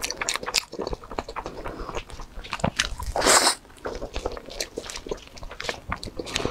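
Close-miked eating sounds from biting and chewing a soft crepe towel roll cake: many small wet clicks and smacks, with a brief louder rustle about three seconds in.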